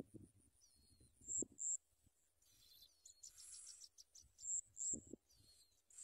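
Faint high, thin chirps and peeps from bar-winged prinia nestlings begging, with a short buzzy trill about halfway through.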